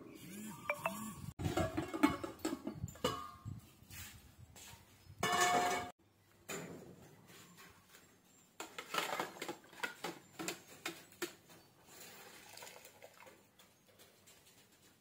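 Clattering and knocking of a metal cooking pot and a perforated metal ladle as boiled banana-leaf parcels are handled at a steaming pot, in short irregular clatters. A brief loud rushing noise comes a little past five seconds.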